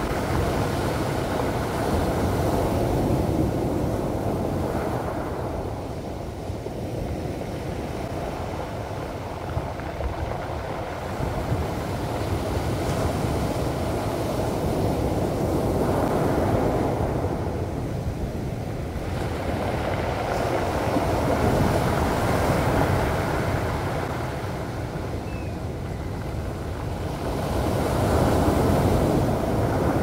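High-tide sea waves breaking and washing up over a pebble beach. The surf rises and falls in slow surges every several seconds.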